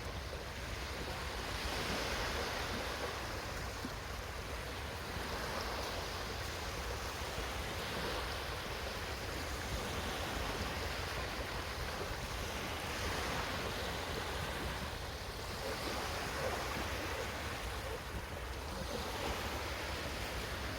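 Small waves washing onto a sandy beach, the surf swelling and fading every two to three seconds.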